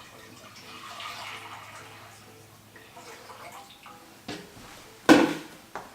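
Milk poured into a pot, a splashing pour that swells and tapers off about three seconds in. Then a knock and, near the end, a louder clatter.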